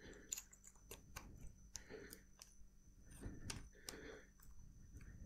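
Faint, scattered clicks and taps from the chain guide's parts and the bicycle chain being handled while the guide is worked into place, with soft rustling in between.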